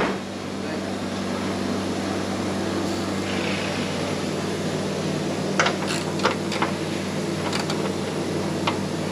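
Steady hum of a ventilation fan running, with a few light clicks and taps in the second half.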